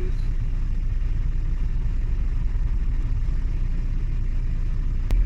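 Steady low rumble of a road vehicle, with a single sharp click about five seconds in.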